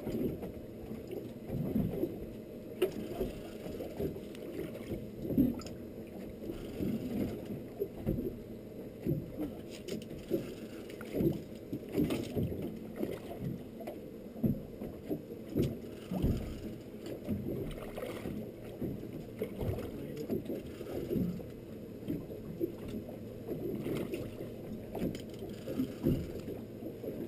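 Water slapping and lapping against the hull of an anchored fishing boat. It makes a low, uneven rumble with frequent short knocks.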